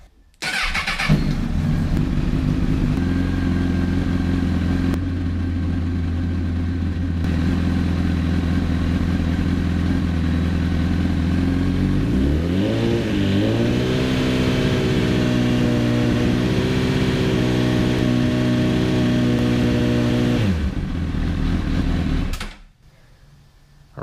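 A 2005 Honda CBR1000RR's inline-four engine is started with a short crank. It runs steadily, then is revved up about halfway through and held at raised revs for several seconds. It drops back and stops shortly before the end. The engine is run for a charging-system test, which reads normal.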